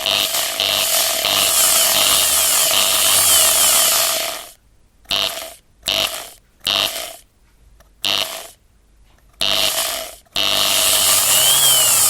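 Electric drill running at full speed, then released about four and a half seconds in and triggered in five short bursts before running steadily again near the end.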